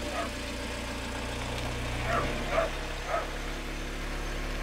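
A dog whining in a few short, slightly falling calls over the steady low drone of a car driving on the road.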